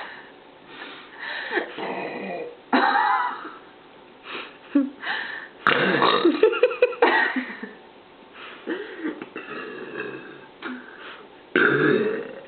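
A woman belching over and over: one burp about three seconds in, a long, loud, pulsing burp at about six seconds, and another near the end, with softer sounds between.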